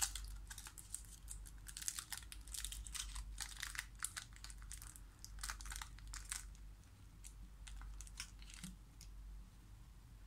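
Thin foil wrapper of a small chocolate being peeled off and opened out by hand: dense crinkling for about six seconds, then a few scattered crinkles.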